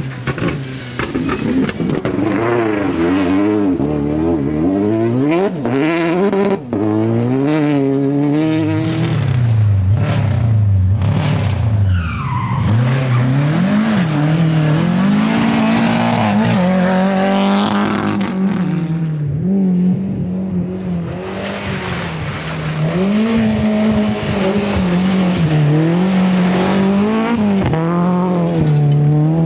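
Rally car engine at full throttle, the revs climbing and dropping sharply again and again with gear changes and lifts into corners.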